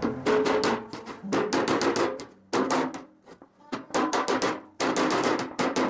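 Body hammer striking a steel car door skin in quick bursts of blows with a metallic ring, knocking out a dent and crease in the panel.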